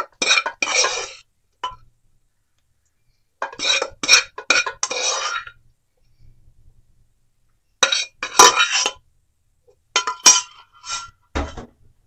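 A spoon scraping and clinking against the inside of a pressure cooker in four bursts as cooked vegetables are scooped out, with a dull knock near the end.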